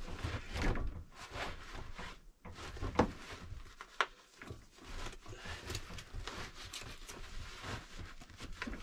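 Fabric slip-on seat cover being pulled and worked down over a bucket seat's backrest: rustling and scuffing of the cloth with a few sharp knocks, the loudest about three and four seconds in.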